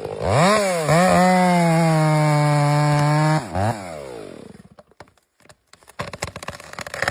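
Chainsaw engine revved up twice, held at a steady full-throttle scream for about two seconds, then blipped once more and let fall back as it winds down. Near the end comes a short run of irregular cracking.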